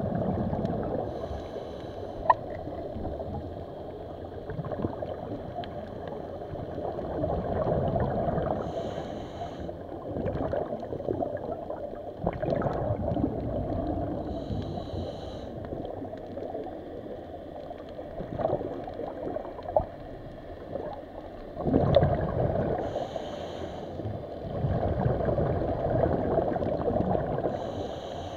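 Water gurgling and bubbling that swells and fades, with a brief high hiss every several seconds.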